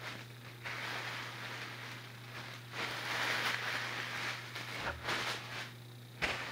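Plastic packaging crinkling and rustling in irregular spells as a pair of shorts is pulled out of it.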